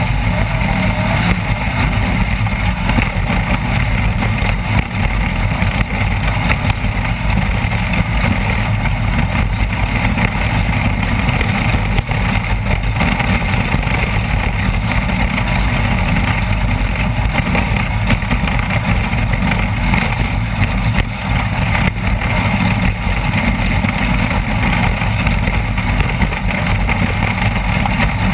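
Off-road race vehicle's engine running hard at speed, a loud, steady drone that does not let up.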